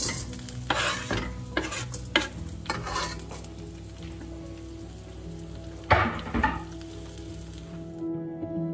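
Chopped chillies, shallots and garlic sizzling as they go into hot oil in a wok, with a knife scraping them off a wooden cutting board in several quick strokes over the first few seconds. A sharp knock about six seconds in.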